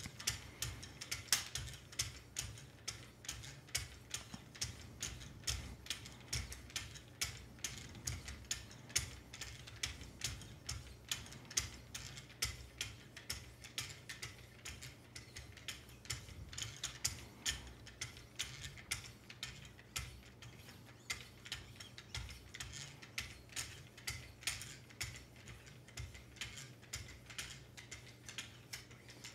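Lapping film on the plastic paddles of a Wicked Edge sharpener stroked along a knife edge, a long run of light, quick strokes, about two a second, each a faint tick-and-scrape, over a low steady hum.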